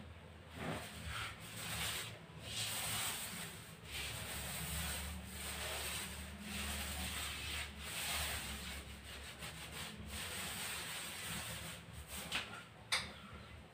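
Paint roller on a long handle rubbing over a wall in repeated strokes, each a second or two long. A couple of sharp clicks near the end.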